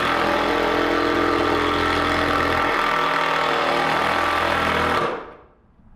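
Cordless drill driving a long screw up through a pine board into the ceiling. The motor runs steadily for about five seconds, then stops.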